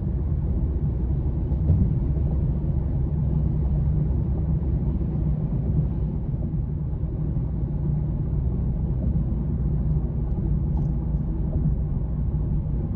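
Steady low outdoor rumble with no distinct events, concentrated in the low range.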